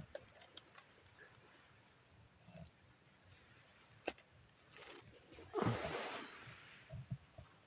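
Faint steady high chirring of night insects, with a few small clicks and a short swishing rustle lasting about a second, a little past the middle.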